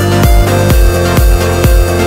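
Background electronic dance music: a steady kick drum about two beats a second under held synth tones.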